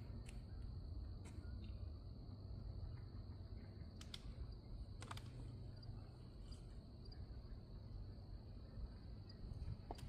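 Faint background ambience: a low rumble, a thin steady high-pitched whine and a few scattered soft clicks, with no calls from the ducks.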